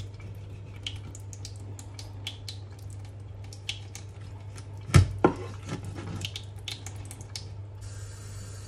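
A kitchen knife cutting up a mackerel on a bamboo cutting board: scattered light scrapes and clicks of the blade against the fish and board, with a sharper knock about five seconds in as it chops through. A steady low hum runs underneath.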